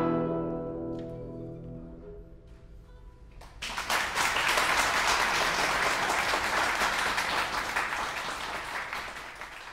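A guzheng's final chord ringing and dying away over the first couple of seconds. Audience applause starts about three and a half seconds in and fades out near the end.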